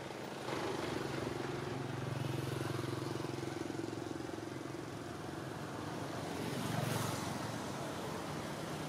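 A motor vehicle engine running, a steady low hum that comes up about half a second in and swells again later.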